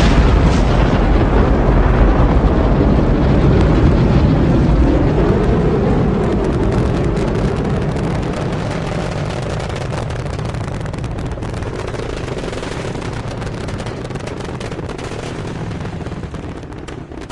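Rocket launch: a deep, crackling rumble of rocket engines and boosters, loudest at liftoff and slowly fading as the rocket climbs away, then cutting off just before the end.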